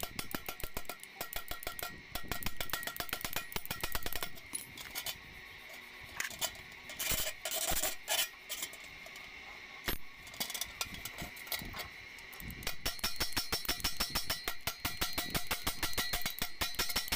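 Hammer striking a stainless steel bucket held on an iron block, a fast run of ringing metallic knocks that pauses twice and then picks up again, as the bucket's handle lug is fixed back on.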